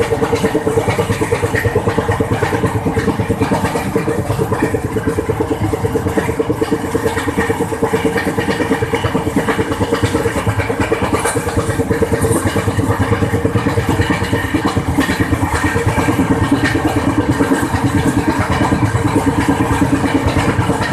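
Wheels of an LHB passenger coach running along the rail with a flat spot, giving a fast, even, repeating beat over a steady hum. The beat is the wheel flat striking the rail once every turn.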